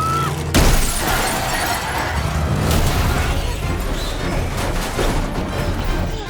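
Movie action sound effects: a sudden loud crash with shattering about half a second in, then a dense, continuous din of crashing and breaking over a driving film score.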